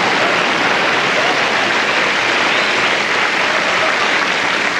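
Audience applauding and laughing, a steady sound of many hands clapping.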